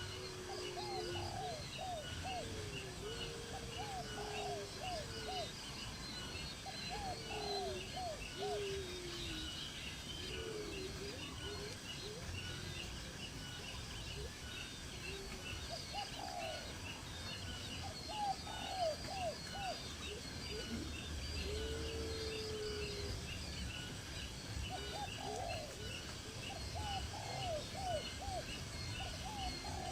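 Birds calling outdoors: clusters of short, curved, low-pitched notes that come and go every few seconds, over a steady fast high ticking chirp and a low background rumble.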